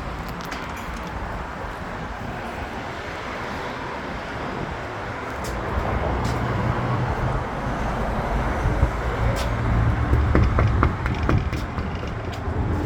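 Street traffic: a steady road-noise hiss, with a motor vehicle's low engine rumble growing louder over the second half, and a few light clicks.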